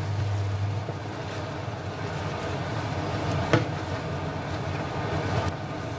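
Orange-juice, soy and sugar sauce sizzling and bubbling around chicken wings in a frying pan as it reduces to a sticky caramel glaze, with a single sharp clink about three and a half seconds in.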